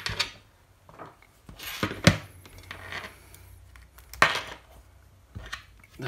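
Charging cables and their metal connectors being handled on a wooden desk: rustling and small clicks, with two sharp knocks about two and four seconds in as hard objects are set down on the tabletop.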